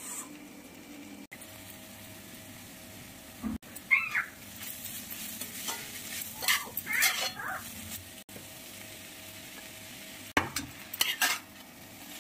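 Food sizzling as it fries in a pan, with a spoon or spatula stirring and scraping against the pan in several short spells. The sound has a few brief dropouts where the clip is cut.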